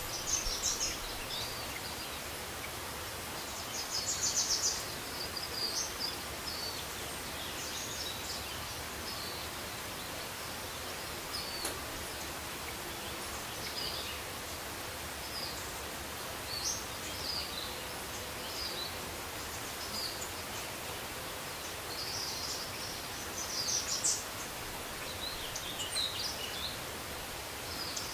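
Steady background hiss with scattered high, quick bird chirps, busiest about four seconds in and again from about twenty-two to twenty-six seconds.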